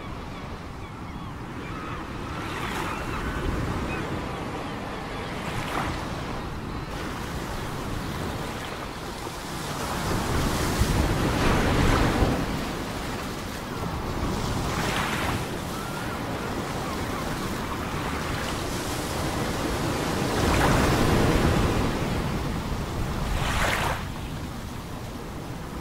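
Ocean surf breaking and splashing in a continuous wash, swelling louder about ten seconds in and again about twenty seconds in, with several sharper splashes in between.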